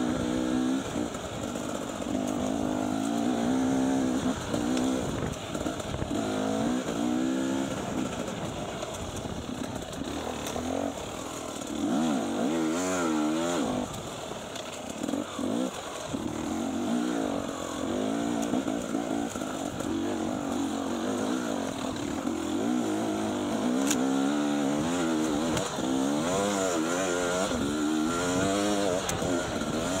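Enduro dirt bike engine under constant throttle changes, its pitch rising and falling every second or so as it is ridden over rough, rocky trail.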